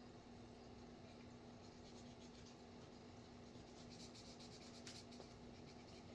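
Faint strokes of a Sharpie marker drawing on paper, quickest and densest about four to five seconds in.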